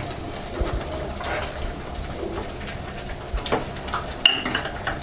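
Plastic ladle stirring a simmering coconut-milk chicken stew in a metal pan, with a low steady bubbling and soft scrapes and taps against the pan. About four seconds in there is one sharper knock with a brief ring.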